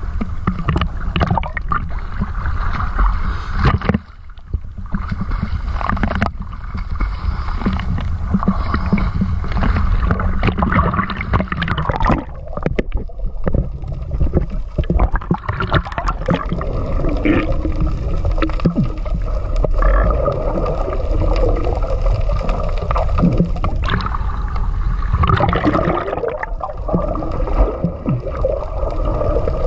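Sea water sloshing and gurgling against a waterproof action camera, first at the surface and then underwater.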